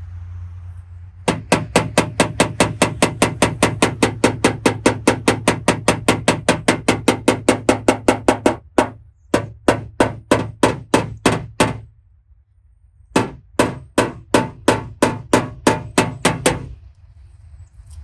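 Rapid, even taps of a dent-repair hammer and knockdown on a car's sheet-metal panel, about five a second with a short ring on each, then slower taps, a pause, and a second run: tapping down high spots to finish a paintless dent repair.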